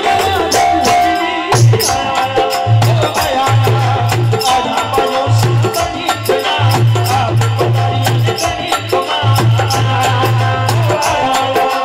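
Live Rajasthani devotional bhajan music. A harmonium plays held chords over a quick, steady percussion beat, with deep bass notes coming in short runs.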